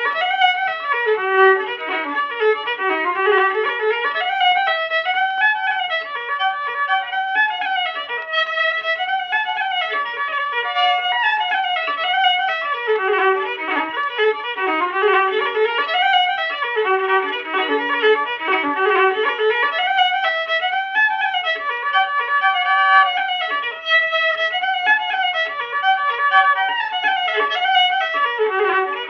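Unaccompanied fiddle playing an Irish traditional dance tune, one unbroken melody line throughout.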